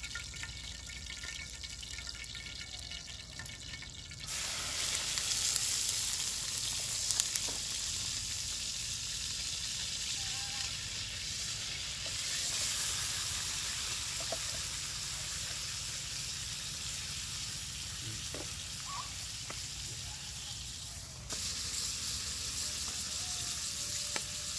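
Food frying in a pan over a wood fire: a loud sizzle starts suddenly about four seconds in as ingredients go into the hot pan, holds steady, and steps up again near the end.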